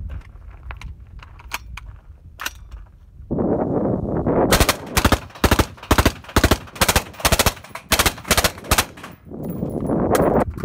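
Suppressed 5.56 AR-type rifle with a 10.3-inch barrel firing M193 ammunition through a Thunder Beast suppressor: a rapid string of sharp shots lasting about four seconds, starting about halfway through. A few light metallic handling clicks come before it.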